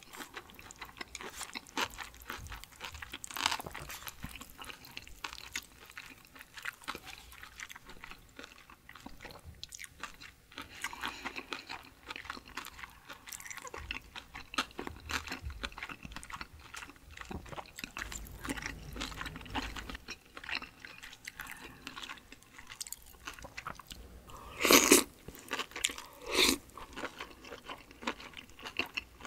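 A person eating spicy cold noodles close to the microphone: steady chewing with small wet mouth clicks, and two short, louder slurps near the end.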